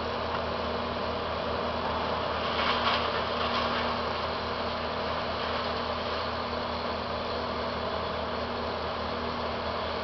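Engine of tree-service machinery running steadily with a low throbbing hum, briefly louder about three seconds in.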